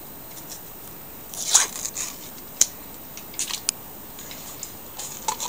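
Foil lid being peeled off a plastic yogurt cup: a brief crinkling tear about one and a half seconds in, then a sharp click and a few lighter clicks and crackles as the thin plastic cup is handled.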